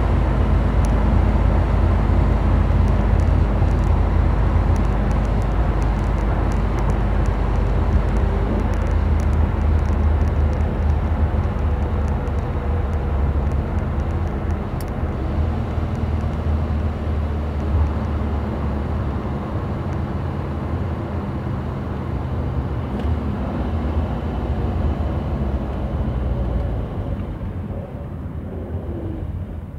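In-cabin sound of a 1977 Triumph Dolomite 1850 HL on the move: its 1,854 cc slant-four engine running steadily under the low rumble of road and tyre noise. It eases off and gets quieter over the last few seconds as the car slows for traffic.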